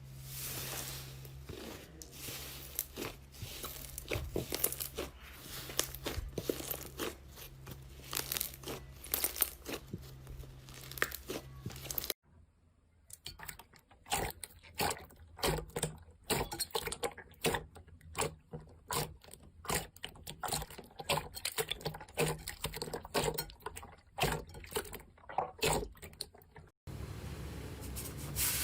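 Slime being squeezed, stretched and poked by hand, making dense runs of small crackles, pops and squelches, with a low hum underneath in the first part. The sound cuts abruptly to a new clip about twelve seconds in and again near the end.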